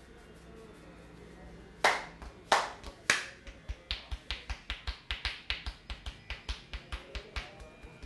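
Sharp snaps of a barber's fingers tugging tufts of hair during an Indian head massage: three loud snaps about half a second apart, then a quick even run of softer snaps, about four a second.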